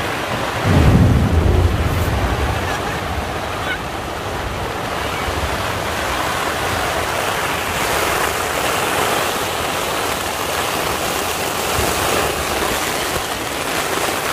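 Heavy rain falling steadily on a tent's tarp and the grass around it in a storm, with a short low rumble about a second in.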